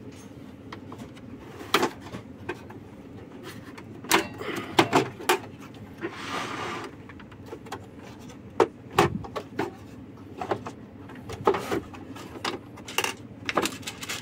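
Plastic housing panels of a Saeco Pico Baristo coffee machine being worked loose and lifted off by hand: scattered clicks and knocks of plastic, with a short scraping slide about six seconds in.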